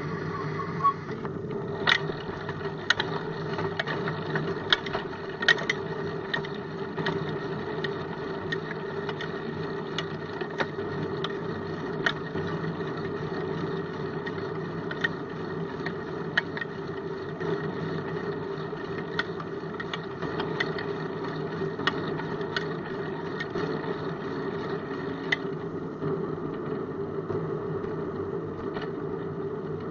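Steady rumble and hum of a bicycle rolling over asphalt, heard through a camera mounted on the bike, with frequent irregular sharp clicks.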